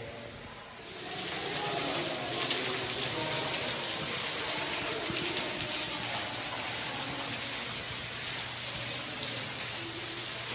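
Steady rush of flowing water that comes up about a second in.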